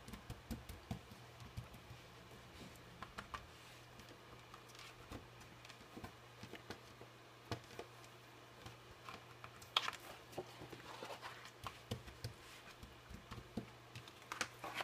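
Fingertips patting and pressing a sheet of thick craft card soaked with glycerine and water, working the liquid into it: faint, irregular light taps and small wet clicks, a few louder ones among them.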